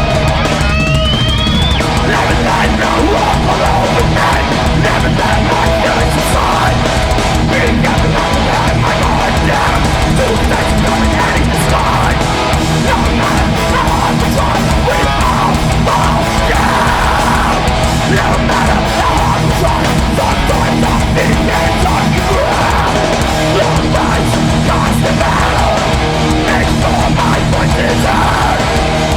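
Metallic hardcore band playing live and loud: heavy distorted guitars over bass and drums, with a short rising squeal about a second in.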